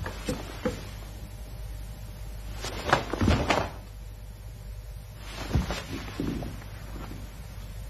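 A karate gi's cotton snapping and rustling and bare feet stepping and sliding on the mat through the closing movements of a kata: a few short sharp sounds, a quick cluster about three seconds in, and one more as the feet are drawn together, over a steady low hum.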